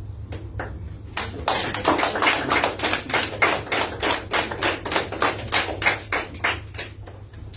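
Applause from a small audience of a few people, with the individual hand claps distinct. It starts about a second in and dies away near the end.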